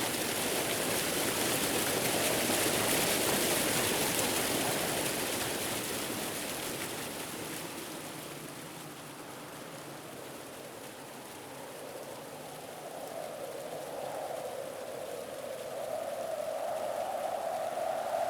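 Steady rush of flowing water. It dips in level around the middle and swells again toward the end, with a deeper rushing coming up in the last few seconds.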